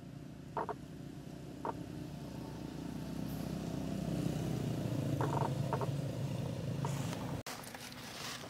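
A motor vehicle engine running nearby, a low rumble that grows louder for several seconds and cuts off abruptly near the end. A few short high chirps sound over it.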